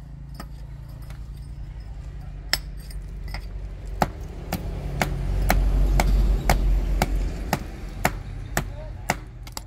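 Hammer striking a steel chisel to chip at brick and concrete, in sharp metallic blows. They come sparsely at first, then steadily about twice a second. Under them a low rumble swells in the middle and fades toward the end.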